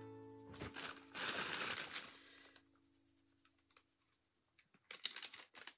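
Rustling and crinkling of cotton T-shirts being handled and folded, loudest about a second in, then a short cluster of sharp crackles near the end.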